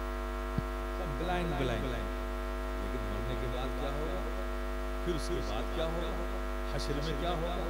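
Steady electrical hum from a public address system, with a man's voice coming through the loudspeakers in short stretches.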